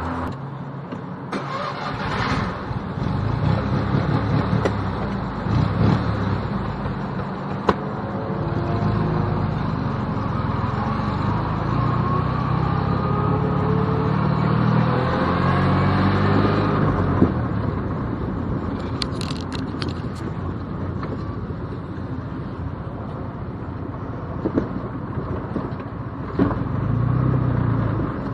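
Small classic Fiat 500's air-cooled two-cylinder engine heard from inside the cabin, pulling away and accelerating, its pitch rising steadily through the middle and dropping back about two-thirds of the way in.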